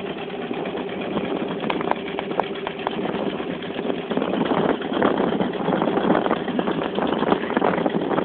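Fishing boat's engine running steadily at idle. From about halfway a dense, irregular clatter grows louder over it.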